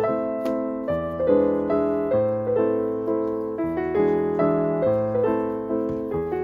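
Background piano music: a steady run of notes over sustained bass notes, each note fading after it is struck.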